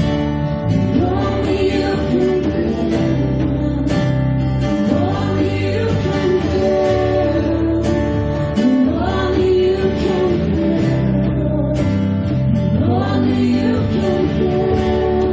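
Live worship band playing a song: strummed acoustic guitar, drums and keyboard, with a voice singing over them.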